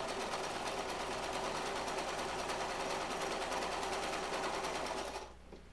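Brother electric sewing machine running at a steady speed, stitching through canvas with a rapid, even needle rhythm, then stopping about five seconds in.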